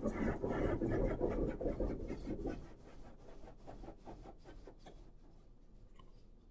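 Automatic carwash rinse water spraying against the car, heard from inside the cabin as a loud pulsing rush that drops away about two and a half seconds in. Faint rubbing of the handheld phone against the seat fabric follows.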